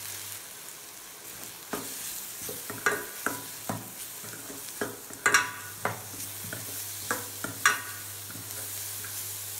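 Chopped onions sizzling in oil in a stainless steel kadai, with turmeric and salt just added, while a steel ladle stirs them. From about two seconds in, the ladle scrapes and clinks against the pan; the sharpest clinks ring briefly.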